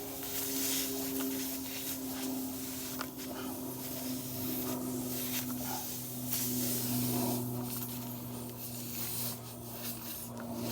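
Steel reamer tool of a tyre plug kit scraping and rasping as it is twisted and worked through the puncture hole in the tyre rubber. Underneath runs a steady low hum.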